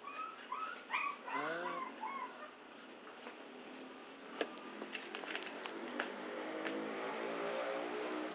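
A vehicle engine on the street outside hums steadily, growing louder from about five seconds in as it approaches. A few sharp clicks come through, and near the start there are some short sliding voice-like calls.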